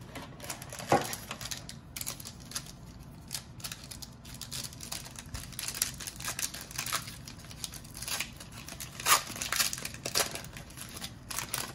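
Foil wrapper of a Panini Mosaic trading card pack crinkling and tearing as it is opened by hand. Irregular crackles run throughout, with sharper snaps about a second in and again about nine seconds in.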